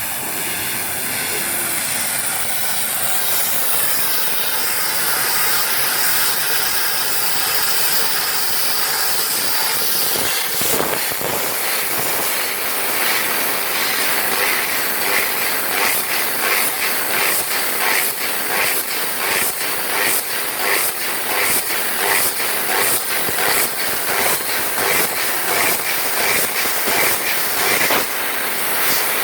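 Fiber laser cutting machine cutting sheet metal: a loud steady hiss of assist gas from the cutting head, which breaks into rapid pulses about a third of the way in.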